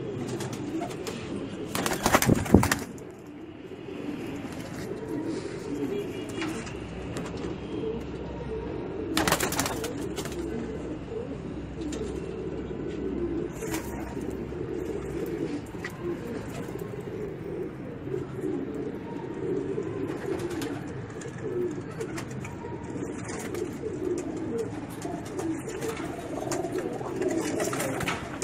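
Teddy pigeons cooing continuously in a low, rolling murmur. Two brief loud noisy bursts cut across it, the loudest about two seconds in and another about nine seconds in.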